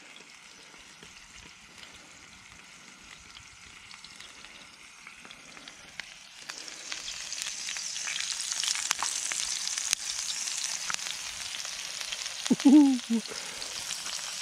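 Minced-meat kebabs and pitta dough frying in a cast-iron pan, a steady sizzle that grows louder about six seconds in. A short voice sound breaks in near the end.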